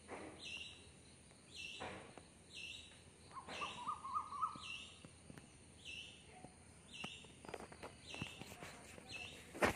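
A bird repeating a short, high call about once a second, with a brief lower warbling call about four seconds in. Faint clicks sound here and there beneath it.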